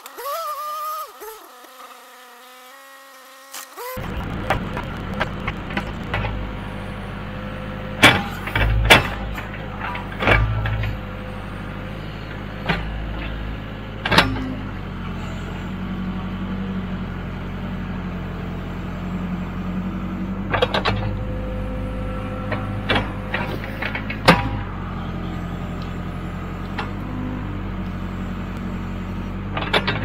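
Diesel engine of heavy farm equipment running steadily, cutting in abruptly about four seconds in after a quieter stretch, with loud sharp metal clanks and bangs every few seconds.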